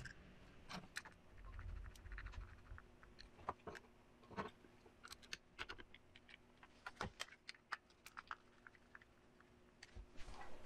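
Faint, irregular clicks and small scrapes of a screwdriver driving the screws of a belt clip into the back of a Belfone BF-TD520 handheld radio.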